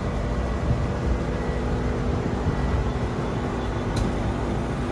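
Steady machinery hum and whir with constant low tones running through it, and a single sharp click about four seconds in.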